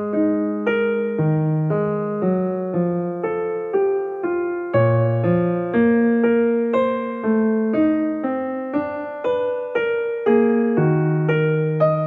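Background piano music: a slow melody of struck keyboard notes, about two a second, each ringing and fading before the next.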